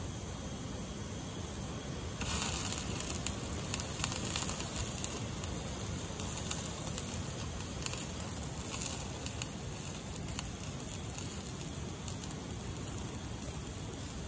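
Campfire crackling steadily with scattered small pops, and a brighter hiss for a few seconds about two seconds in.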